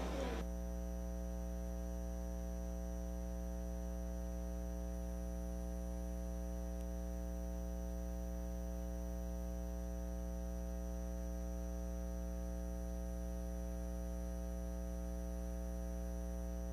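Steady electrical hum with a stack of many even overtones, unchanging throughout; the tail of a voice ends within the first half second.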